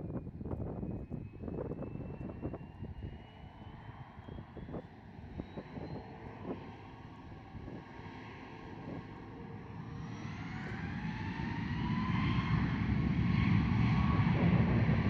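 Boeing 737 MAX's CFM LEAP-1B jet engines spooling up on the runway: a thin whine climbs in pitch, then from about halfway through several whines rise together and the engine noise swells strongly, the run-up to takeoff thrust. Wind thumps on the microphone in the first half.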